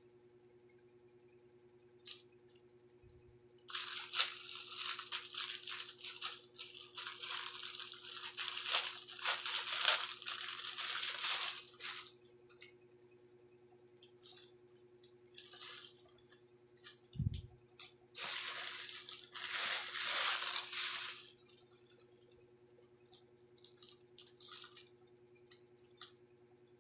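Plastic packaging crinkling and rustling as it is handled, in two long spells with shorter crackles between, over a faint steady hum; a soft thump between the two spells.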